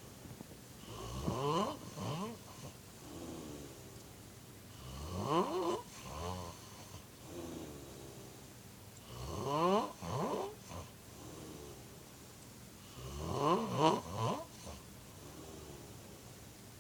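A sleeping man snoring: four snores about four seconds apart, each a pitched, rattling inhale that glides upward in pitch, followed by a quieter breath out.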